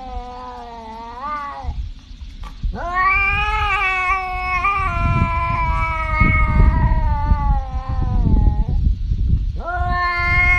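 Domestic cat giving long, drawn-out yowling meows, three in a row. The middle call holds for about six seconds, and the first ends with a rising bend. A low rumble runs underneath.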